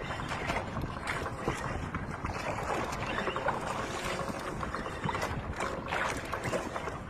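Steady noise aboard a small fishing boat at sea, with scattered small clicks and knocks and a faint steady hum.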